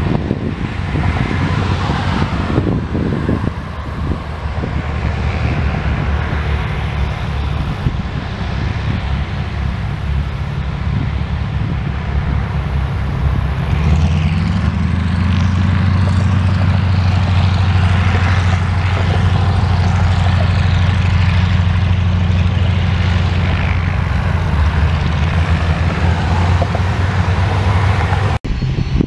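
Several North American T-6 Texans' nine-cylinder Pratt & Whitney R-1340 radial engines running as the planes taxi: a loud, low, rumbling drone that grows louder about halfway through.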